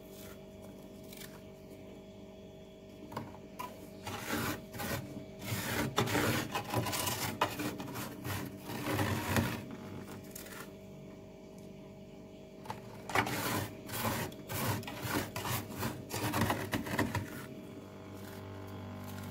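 Freezer frost being scraped and scooped up by bare hand, crunching and rasping in two spells of a few seconds each with a quieter pause between. A steady low hum runs underneath.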